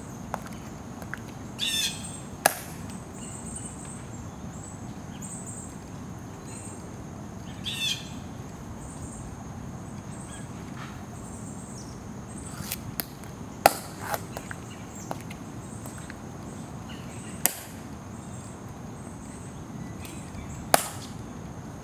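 Sharp, single clicks of the Tomb guards' heels on the plaza, about five stand-out ones spread through, two of them close together around the middle.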